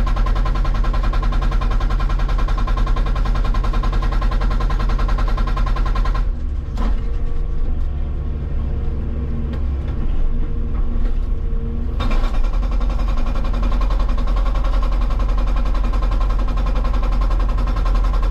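Hydraulic rock breaker on a Hitachi 160 excavator hammering on rock in a fast, steady rapid-fire pounding. About six seconds in, the hammering lets up for roughly six seconds, leaving the machine's low steady running, then it starts hammering again.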